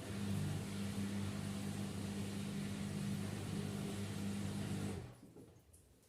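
LG F10B8MD washing machine running its drum motor in the final spin phase, a steady hum with a low drone. About five seconds in the motor cuts out and the sound dies away within a second as the drum stops.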